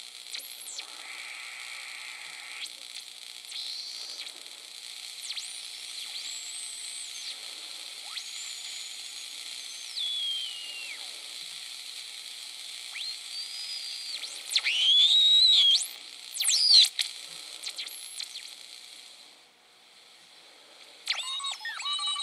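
Homebrew 40-meter (7 MHz) regenerative receiver in its speaker: band hiss with whistling heterodyne tones sliding up and down in pitch as it is tuned across signals. The loudest squeals come about 15 and 17 seconds in, and a cluster of several steady tones sounds near the end.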